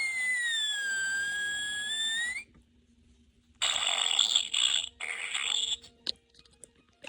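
Recorded fart sound effects from a children's fart sound book. First a long whistling squeal of about two and a half seconds that dips in pitch and then rises again. After a pause come two raspy bursts, one right after the other.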